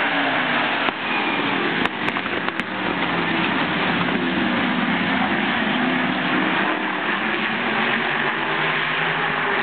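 A pack of winged sprint cars racing past with their engines at full song, the engine pitch rising and falling as they throttle through the turns and pass by.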